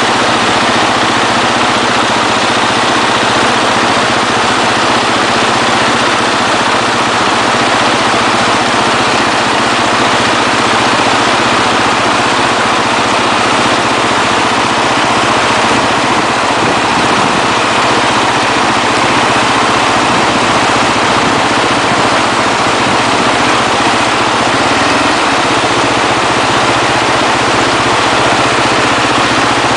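Motorbike engine running steadily, its pitch unchanged throughout, over a loud even hiss.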